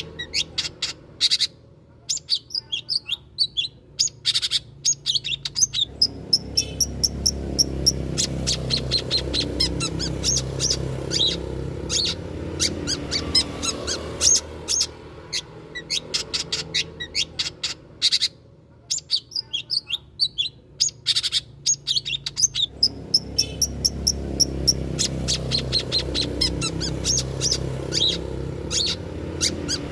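Long-tailed shrike (cendet) singing in rapid runs of sharp chirps and short trills, repeating as a looped lure recording. A low hum sits behind it in two long stretches.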